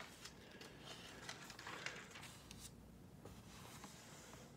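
Near silence: room tone, with a few faint clicks.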